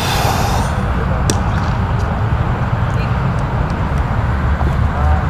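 Cricket bat striking a ball once, a sharp knock about a second in, over a steady low rumble.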